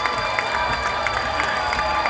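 Audience cheering and clapping at a live show, a dense steady crowd noise with rapid scattered claps.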